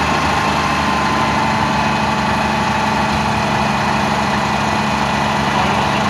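Heavy diesel engine of a parked fire truck running steadily at a constant speed, an even drone with a steady higher whine over it.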